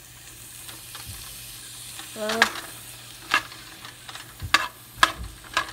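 Spatula stirring chopped cherry tomatoes, onions and red peppers in an oiled frying pan, with a faint sizzle and, from about two seconds in, several sharp knocks of the spatula against the pan.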